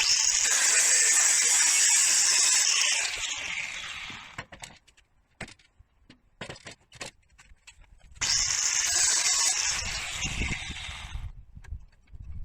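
A power tool runs in two bursts of about three to four seconds each, with a high hissing whine that drops in pitch as it winds down, and a few handling clicks in the pause between.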